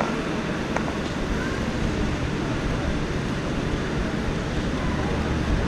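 Model passenger train rolling slowly along its track, set against the steady din of a crowded hall, with one faint click about a second in.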